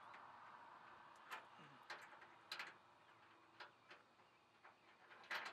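Faint, scattered small clicks and taps of bolt hardware being fitted by hand to a fifth-wheel hitch rail, at irregular intervals.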